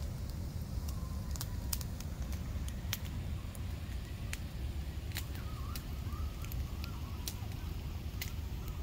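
Wood fire crackling, with scattered sharp pops over a steady low rumble.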